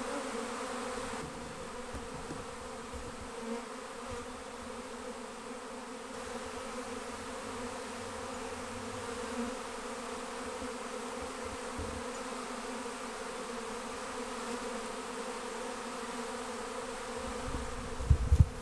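Steady buzzing of a swarming honeybee colony, the bees flying around a cluster massed on a tree trunk. A few brief low thumps come near the end.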